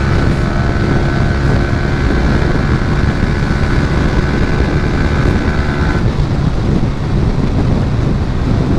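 Motorcycle engine running at road speed, with heavy wind noise on the microphone; the engine note changes about six seconds in as a higher steady tone drops out.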